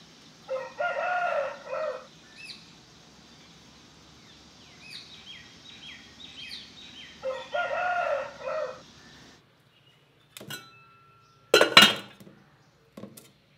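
A rooster crows twice, each crow about a second and a half long, while small birds chirp between the crows. Then the outdoor sound stops, and an enamel pot lid clinks and clatters as it is lifted, loudest about twelve seconds in.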